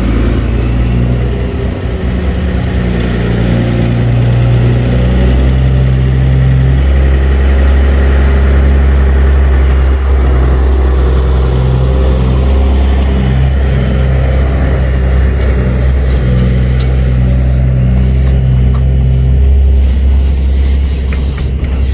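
Peterbilt 379 semi truck's diesel engine running steadily as the loaded tractor-trailer drives slowly past, a loud low drone that wavers as it goes by.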